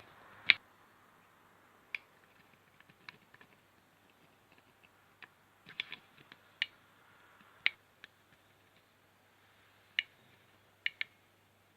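About a dozen short, sharp clicks and taps at uneven spacing, the loudest about half a second in, over a faint steady low hum.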